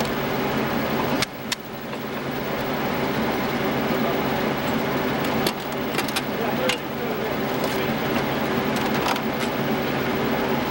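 An engine idling steadily, with a few sharp metallic clicks from cartridges and magazines being handled.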